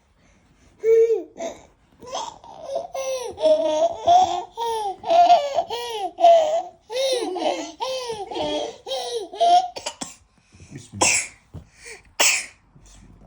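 Baby laughing in a long run of high-pitched, bouncing bursts, followed near the end by two short breathy, cough-like bursts.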